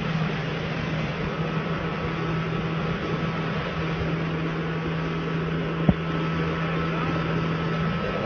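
Steady mechanical hum over a noisy background, with one sharp click about six seconds in.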